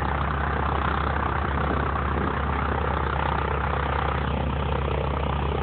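North American T-6 Texan's 600-horsepower Pratt & Whitney R-1340 nine-cylinder radial engine idling steadily on the ground, propeller turning.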